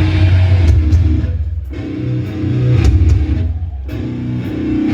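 Live hardcore band playing a heavy stop-start riff: distorted electric guitars and bass, cutting out briefly about one and a half and three and a half seconds in. Loud and distorted as heard from the crowd through a phone microphone.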